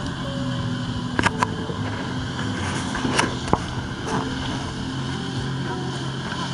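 Jet ski engine driving a flyboard's water jet, running steadily. A few sharp clicks come about a second in and again a little past three seconds.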